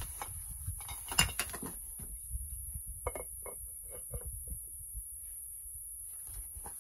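A series of light clinks and knocks, the sharpest about a second in and several more in a cluster a little later, some with a brief ring, over a steady high-pitched hiss.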